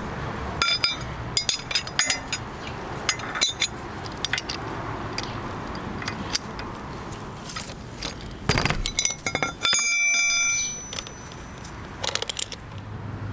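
Metal hand tools clinking and clattering against each other and the chain. There are a string of sharp clicks and a few ringing metallic clinks, the longest ring about ten seconds in.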